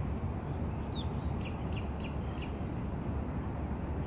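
A few short, high bird chirps in the middle, over a steady low outdoor rumble.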